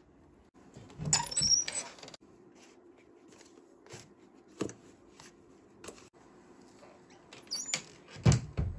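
Handling noises of hands-on food preparation: short knocks, scrapes and clicks in two clusters, about a second in and again near the end, with a few single clicks between, over a faint steady hum.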